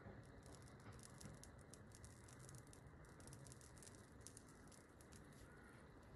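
Faint, rapid crackling from the charred, smouldering pill residue glowing on the gas burner, thinning out near the end.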